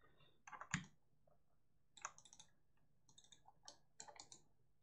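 Faint clicking of a computer mouse and keyboard, in small clusters of quick clicks about once a second.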